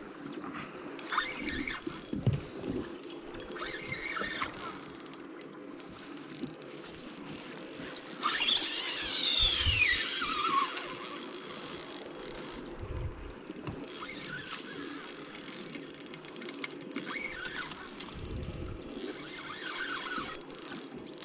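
Spinning reel on a light jigging rod working against a hooked fish: short bursts of reel cranking, and about eight seconds in the drag gives line with a whine that falls steadily in pitch over two seconds as the fish's run slows.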